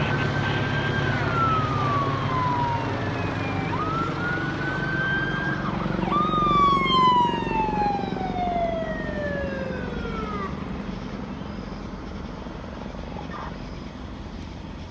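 Emergency vehicle siren wailing through three slow cycles, each rising quickly, holding high, then gliding down. The last and longest fall dies away about ten seconds in. A low steady drone runs underneath and fades toward the end.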